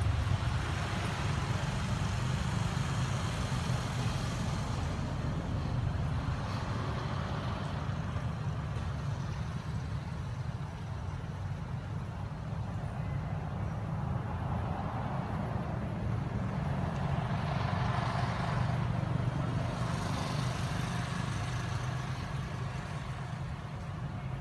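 Steady low rumble of outdoor background noise, with a softer hiss above it that swells and fades a few times.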